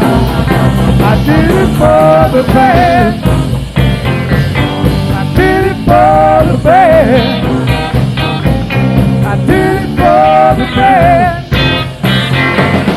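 Live blues-rock band playing, soundboard-recorded: electric lead guitar repeating a phrase of bent, wavering notes about every four seconds over bass and drums.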